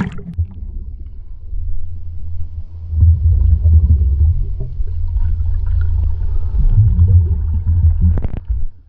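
Muffled, low underwater rumble of moving water and swimmers, heard through an action camera's waterproof housing held below the surface, with a short knock near the end.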